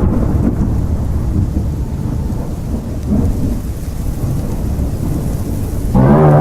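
Horror sound-effect ambience: a low, steady thunder-like rumble with a faint rain-like hiss. Near the end a deep droning tone with several pitches cuts in suddenly.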